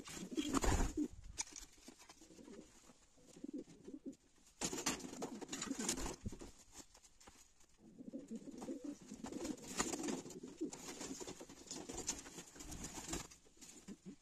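Domestic racing pigeons cooing, low repeated coos throughout, with louder noisy bursts just after the start, around five seconds in and around ten seconds in.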